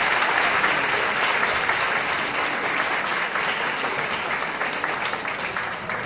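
Audience applauding with dense clapping that slowly dies down toward the end.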